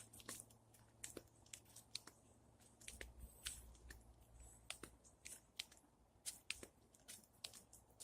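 Faint, irregular sharp clicks and crackles, a few per second.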